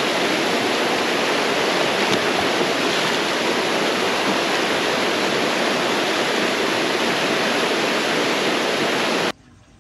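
Small rocky cascade pouring into a river pool: a steady rush of falling and flowing water that cuts off suddenly near the end.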